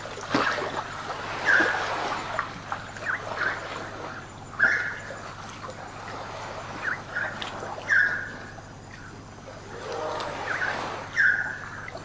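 Water and wildlife ambience: trickling water under a short, high animal call that repeats about every three seconds, four times, with smaller chirps in between.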